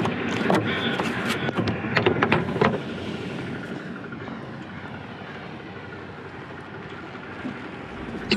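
Sharp clicks and knocks of pliers and handling on old wiring for about the first three seconds, then a steadier, quieter rushing background noise.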